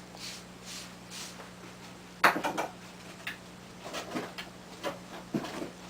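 A sharp clatter of hard objects about two seconds in, followed by several lighter knocks and clinks, over a faint steady hum.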